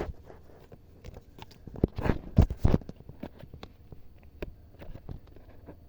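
A small paper packet being opened by hand: a run of crinkling, crackling rustles, loudest about two seconds in, then scattered light ticks as the paper is handled.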